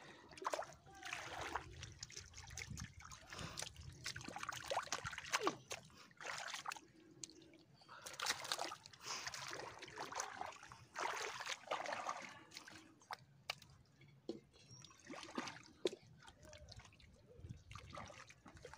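Hands and feet sloshing and splashing through wet mud and shallow muddy water, in irregular bursts with small sharp slaps.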